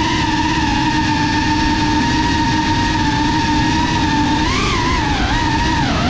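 FPV quadcopter's motors and propellers whining steadily in flight over a low rushing noise, the pitch wavering and swinging up then down about two-thirds of the way through.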